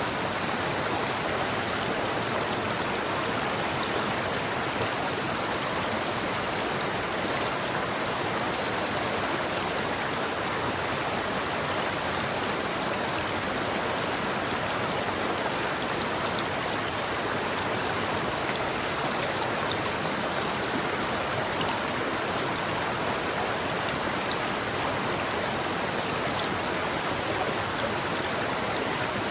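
A river's water flowing steadily over rocks, an even rushing sound that does not change.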